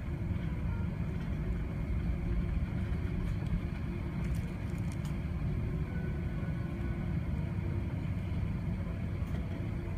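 Steady low rumble inside the cabin of an Airbus A380 on the ground before takeoff: engine and airframe noise from the airliner.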